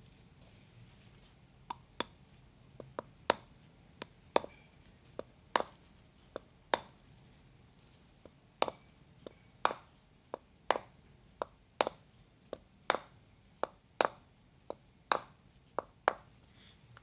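Mallet tapping a 6000ZZ shielded ball bearing into a scooter's aluminium front wheel hub: a long series of sharp knocks, uneven in spacing and strength, one or two a second, as the bearing is driven in bit by bit until it sits flush.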